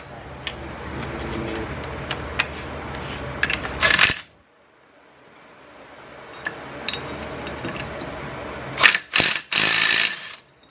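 Metal hand tools and a socket clinking and rattling against metal engine parts during work on the clutch's 22 mm centre nut. There are scattered sharp clicks, a dense burst of clinking just before four seconds in, and a louder cluster of clatter near the end.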